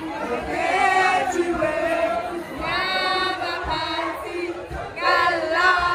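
A group of women singing along together in a bar, loud held notes that slide in pitch, in three phrases, over background music and crowd noise.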